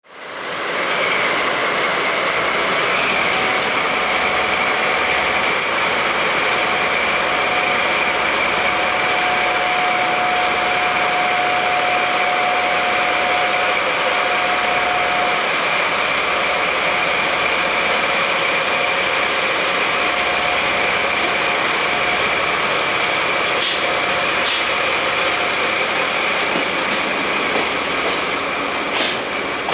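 JR Freight DD51 diesel-hydraulic locomotive's diesel engines running loud and steady as it pulls a freight train away from the station, with a high whine held throughout. Near the end a few sharp clacks come from the tank wagons' wheels rolling past.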